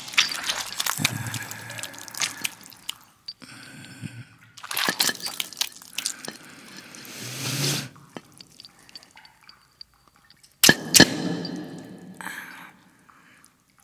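Wet squelching and dripping of hands kneading and stirring a soaked, gritty mash in a bowl, coming in several bursts. About eleven seconds in there are two sharp, loud hits close together, the loudest sound, then a low tail that fades away.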